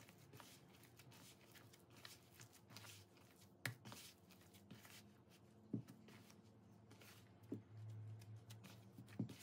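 Faint sounds of hands kneading chapati dough in a bowl: soft squishing and rustling, with a few soft knocks scattered through.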